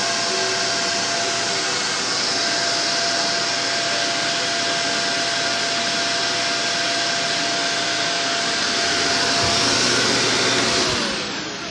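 Vacuum cleaner motor running with a steady whine over the rush of air, then switched off near the end, its pitch falling as the motor spins down.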